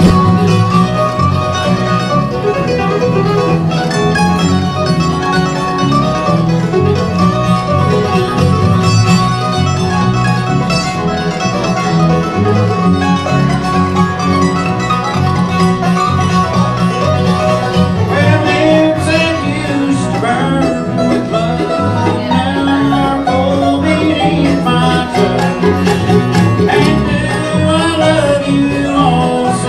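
A band playing an instrumental break between sung verses of a country-style song, with no singing.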